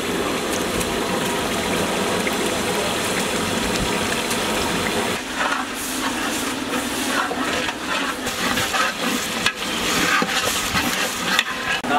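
Spiced pulao broth boiling in a large aluminium pot, a steady bubbling, while a long metal ladle stirs it, with a few short knocks in the second half.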